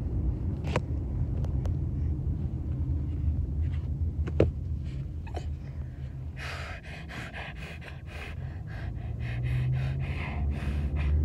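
A toddler puffing and drawing on a harmonica in short, quick breathy chords, starting about six and a half seconds in, over the low steady rumble of a car cabin. Before that only the rumble and a few small clicks.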